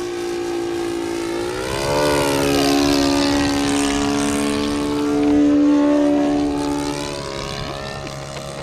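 Engine and propeller of a radio-controlled scale Sopwith Pup model airplane in flight, a steady buzzing tone. About two seconds in, the pitch lifts briefly and then drops lower as the sound grows louder. It is loudest in the middle and fades toward the end, as the plane passes by.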